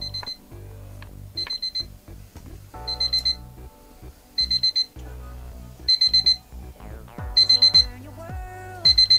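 QCY T13 wireless earbuds sounding their find-my-earbuds alarm: short bursts of about four quick, high beeps, repeating about every second and a half. The beeps start soft and grow steadily louder. Background music plays underneath.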